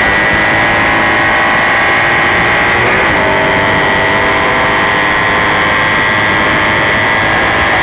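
Onboard sound of a Triumph Thruxton's parallel-twin engine running steadily at racing speed, with heavy wind rush over the camera. The engine note holds even apart from a brief dip about three seconds in.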